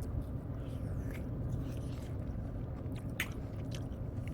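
A person chewing a mouthful of soft cake close to the microphone, with a few faint clicks of the mouth over a low steady background rumble.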